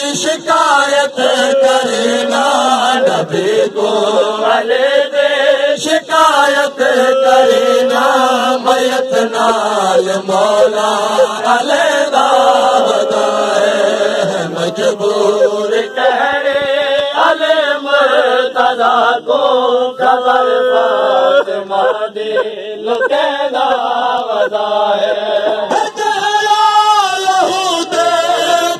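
A male reciter chanting a noha, a Shia mourning lament, into a microphone, his voice rising, falling and holding long wavering notes. Frequent sharp knocks run through it.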